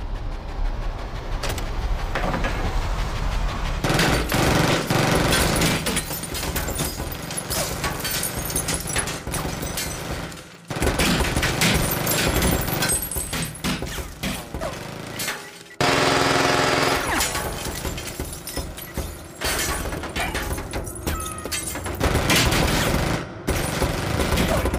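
Movie-soundtrack gunfire: long stretches of rapid, overlapping shots, broken by short pauses about ten and sixteen seconds in, with bullets cracking through glass partitions. A brief pitched sound rises out of the din about sixteen seconds in.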